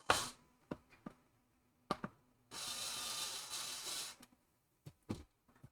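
Sharp clicks and knocks of plastic parts and screws being handled. In the middle, an electric screwdriver runs steadily for about a second and a half, driving a screw into the 3D-printed case. Two more knocks follow near the end.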